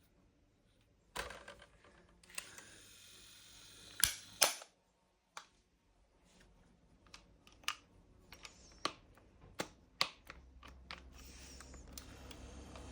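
Clicks and knocks of a stand fan's plastic parts being handled while its motor is oiled, with a hiss lasting about three seconds from a second in. A low hum sets in and grows near the end.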